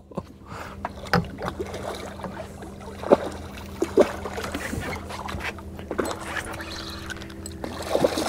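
A boat motor runs with a steady hum while a spinning reel is cranked during a fish fight. A few short, sharp clicks and knocks come through at about one, three and four seconds in.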